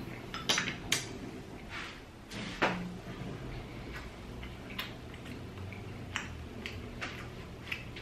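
A person chewing a mouthful of food, with scattered short mouth clicks and smacks, the strongest in the first three seconds. A metal fork is set down on a ceramic plate.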